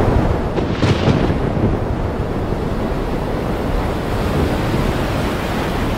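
Storm at sea: a loud, steady rush of wind and waves, with a brighter surge about a second in.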